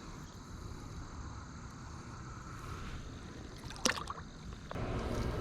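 River water washing and gurgling, with a brief splash about four seconds in; the water noise grows louder near the end.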